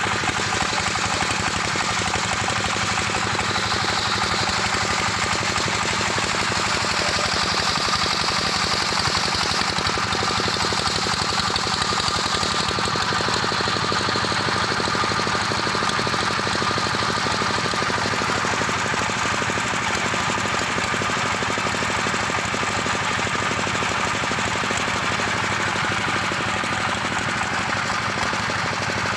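Engine-driven circular sawmill running steadily, its engine beating in a rapid, even knock, with a higher hiss swelling and easing at times over it.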